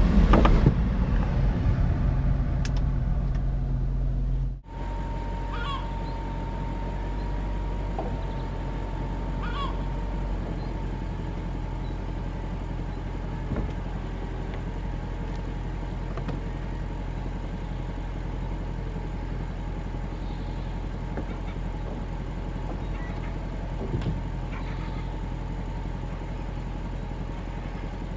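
Audi RS5 Cabriolet's powered fabric roof folding down: a steady mechanical hum with a whine, over a steady low hum. There is a brief drop-out about four and a half seconds in, and a few light knocks later on.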